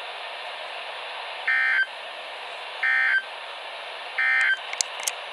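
NOAA Weather Radio Emergency Alert System end-of-message code: three short bursts of digital data tones, each about a third of a second long and a little over a second apart, over steady radio receiver hiss. They mark the end of the alert. A few faint clicks follow near the end.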